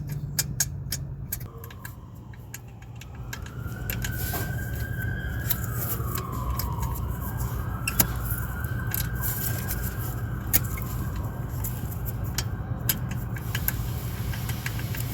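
Volkswagen 2.0T turbocharged four-cylinder engine running at a steady idle. Over it, a high tone slowly rises and falls, and scattered sharp clicks sound throughout.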